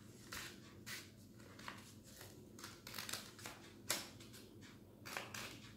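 Small scissors snipping through stiff green paper: a run of faint, irregular snips, about two a second, the loudest about four seconds in.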